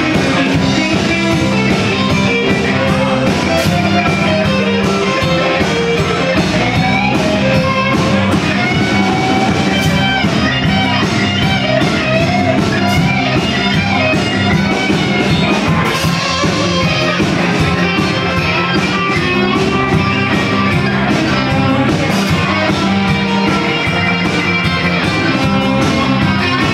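Live band playing rock: electric guitars over drums with steady cymbal and drum hits.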